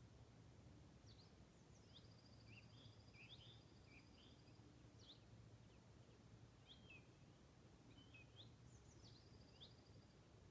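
Faint songbirds singing: scattered short chirps and a long, even trill that comes twice, over a low steady background hum.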